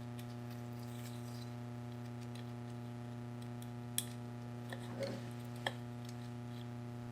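Steady electrical hum with a few light clicks and a brief rustle from small parts being handled while a pin is fitted into a washer's drive assembly.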